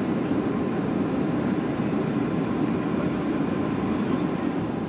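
Steady cabin noise inside a Boeing 737 on approach with flaps extended: the engines and rushing airflow make an even rumble and hiss, heard from a window seat over the wing.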